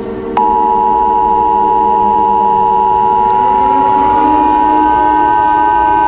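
Emergency Alert System attention signal: a loud, steady two-tone beep (about 853 and 960 Hz) that cuts in sharply a moment in, over a low steady drone. About halfway through, another tone glides upward beneath it and holds higher.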